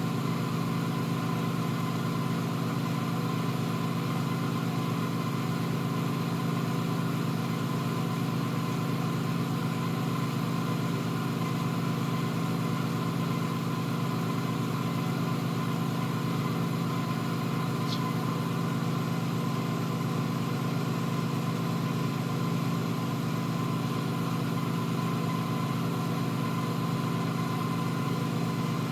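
Steady, unchanging machine hum with a faint high tone, from motor-driven workshop equipment running continuously.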